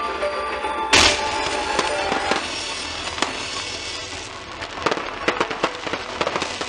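Fireworks going off over music. There is one loud bang about a second in, then a run of crackling fireworks with quick sharp pops that crowd together near the end.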